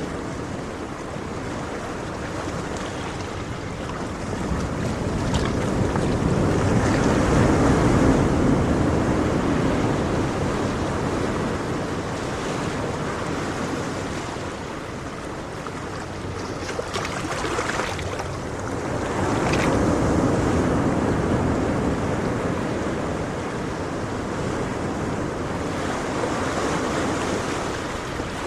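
Ocean surf: waves breaking and washing up the shore, swelling louder twice, about a quarter of the way in and again past the middle, and easing off between.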